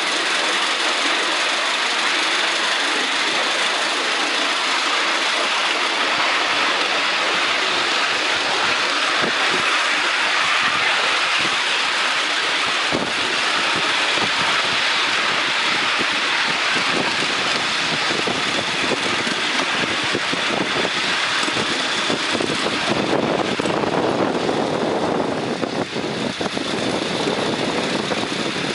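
A ride-on miniature live-steam locomotive, a model of the Britannia-class 4-6-2 No. 70022 Tornado, running at speed with its riding car: a steady rush of wheels on the rails and running noise, heard from the car just behind the engine. About 24 seconds in, the sound turns lower and duller.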